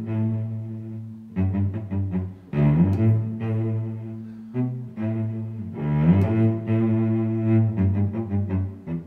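Background music: low, sustained pitched notes, a new note or chord starting every second or so.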